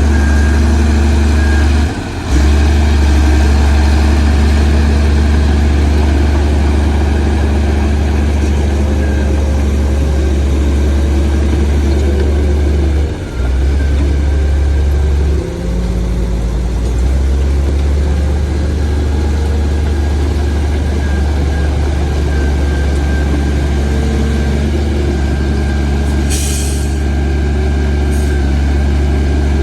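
Heavy diesel engine of earthmoving machinery running steadily with a low drone, dipping briefly about two and thirteen seconds in. A short hiss of air, like an air-brake release, comes near the end.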